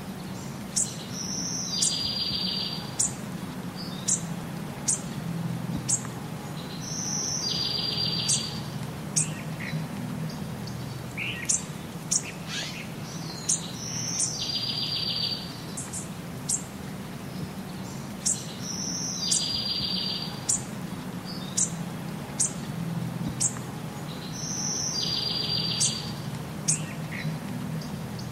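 Small birds chirping: short sharp high calls and a brief buzzy high trill, the same sequence coming round about every six seconds, over a steady low hum.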